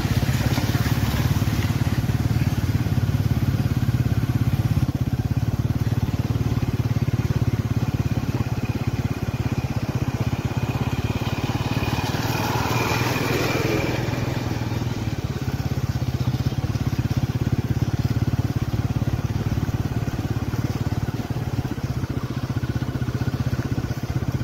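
A vehicle engine running steadily on the move, with a continuous low hum and road noise; a brief louder rush of noise comes about halfway through.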